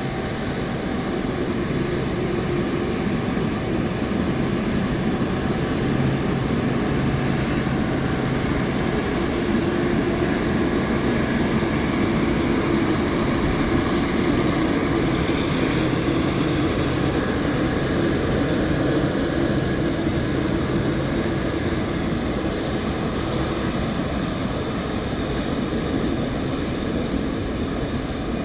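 The four jet engines of a taxiing Boeing 747 freighter make a steady rumbling jet noise with a low hum. The noise swells slightly as the aircraft goes by and eases a little near the end.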